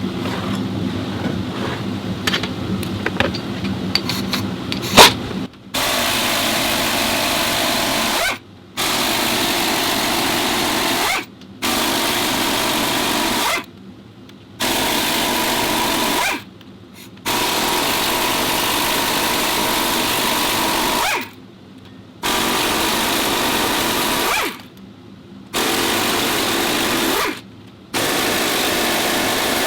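A power tool running in repeated runs of two to four seconds, stopping and starting about eight times with short pauses, after a few seconds of scattered clicks and knocks.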